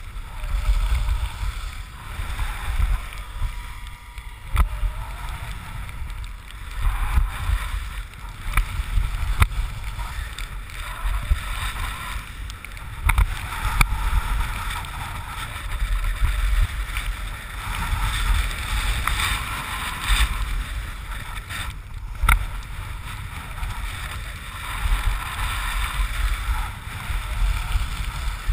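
Wind rushing over a moving skier's action-camera microphone, with the hiss and scrape of skis sliding on packed snow. The noise swells and eases every couple of seconds, and there are a few short clicks.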